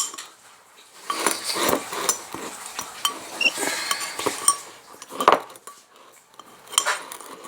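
Metal cutlery clinking and scraping against plates while people eat, in irregular light clicks with a short ring; the sharpest clink comes about five seconds in.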